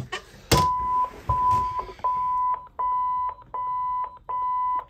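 Garmin marine helm electronics beeping as they are switched on: a sharp click, then six even, steady beeps at one pitch, each about half a second long, about three every two seconds.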